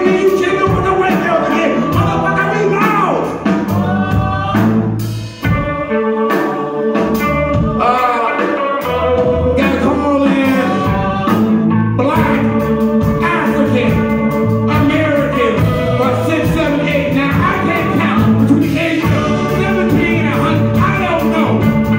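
A live band playing a song, with a man singing lead into a handheld microphone and backing singers joining in.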